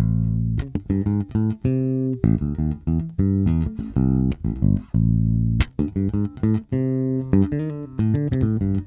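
Spector EuroBolt 4 electric bass with Aguilar PJ pickups and Aguilar preamp, played fingerstyle in a continuous run of plucked notes, the jazz pickup rolled back slightly to favour the P pickup. A few notes have sharp, clicky attacks.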